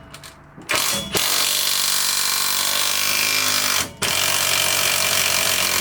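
Impact wrench running on a rear suspension bolt to loosen it, in three runs: a brief one, then two long runs of about three and two seconds with a short break between.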